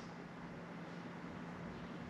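Faint room tone: a steady low hum under a light hiss.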